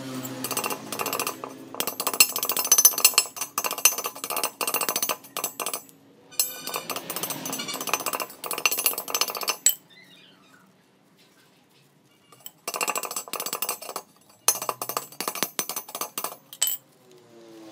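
Thin steel mesh sheet rattling, clinking and scraping against a steel bar and rod as it is bent by hand into a curve. The rattling comes in dense runs, stops for a couple of seconds in the middle, then starts again.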